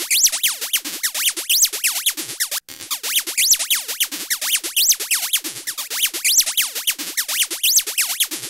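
Electronic outro music: repeated synthesizer pitch sweeps, rising and falling two or three times a second, over a steady low drone, with a brief break about a quarter of the way in.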